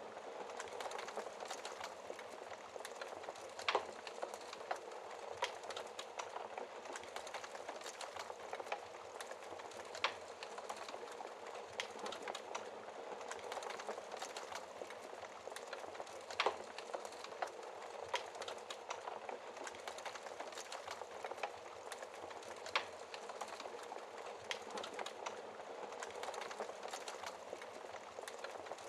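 Wood fire crackling in a fireplace: a steady hiss with scattered small crackles, and a sharper, louder pop about every six seconds.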